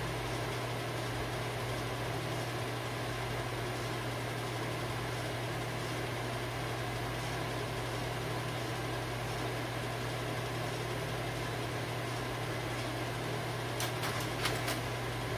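A bank of 35mm slide projectors running, their cooling fans giving a steady hum with a strong low mains-hum tone. A few quick clicks come near the end.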